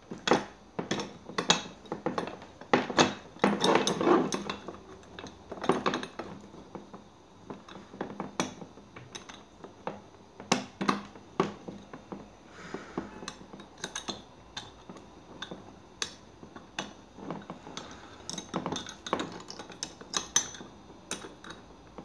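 Irregular metallic clicks, clinks and knocks of a multi-tool and a small aluminium drill-press vise being handled, the blade being set upright between the vise jaws. The knocks are loudest and most frequent in the first few seconds, then lighter.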